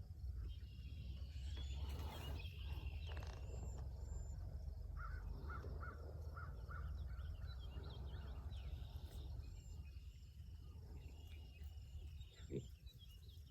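Birds calling faintly over a steady low rumble: a quick run of about six short caws about five seconds in, with higher chirps in the first few seconds.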